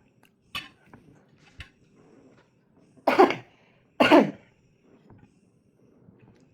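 A person coughing twice, about a second apart, loud and sharp, while eating. A few faint clicks come before.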